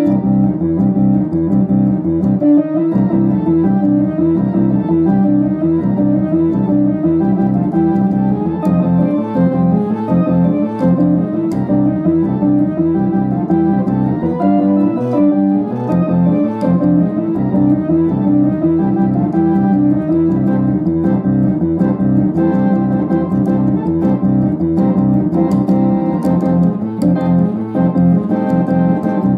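1960s Philips Philicorda transistor organ played with both hands: a steady, rhythmic run of chords with a melody over them.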